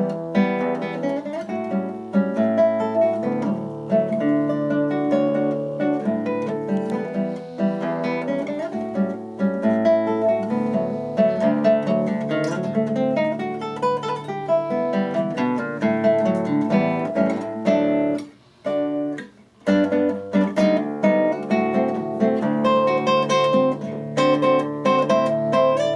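Solo acoustic guitar playing a fingerpicked piece, a continuous run of plucked notes with a brief break about two-thirds of the way through.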